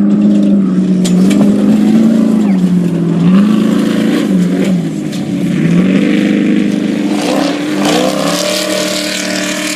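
Off-road race vehicle's engine running hard, its pitch climbing and dropping as the throttle and gears change, with knocks and rattles over rough ground.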